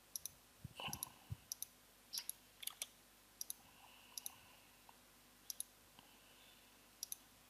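Faint computer mouse button clicks, single quick clicks scattered about once a second, as points are picked in CAD software.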